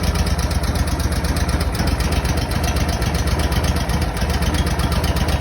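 Boss Snowrator engine idling steadily with an even, rapid low pulse, shortly after a cold start.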